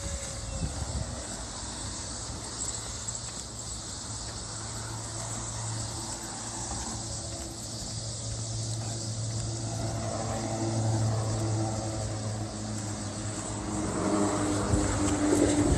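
A low engine drone that grows gradually louder through the second half, like a powered aircraft or vehicle approaching, over a steady high hiss.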